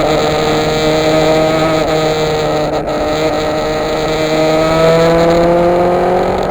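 Yamaha FZR motorcycle's inline-four engine running at a steady speed, then rising in pitch as it accelerates over the last second and a half, with wind rush on the microphone.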